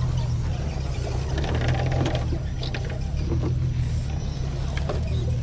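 A steady low engine hum runs throughout, with light scrapes and clicks from a scale RC crawler truck's tyres and chassis working up a granite boulder.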